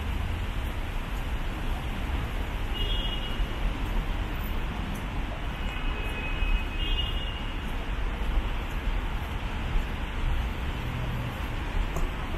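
Steady city traffic noise on a wet street, a constant low rumble with hiss, with a couple of faint brief high tones about three and six seconds in.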